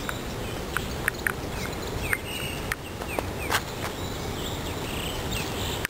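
Outdoor ambience: a steady background hiss with scattered short bird chirps, several of them quick falling calls, bunched in the first few seconds.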